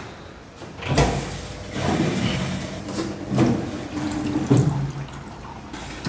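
Bosch Logixx 8 front-loading washing machine starting a rinse cycle: its water inlet valve opens about a second in and mains water rushes into the machine, filling it.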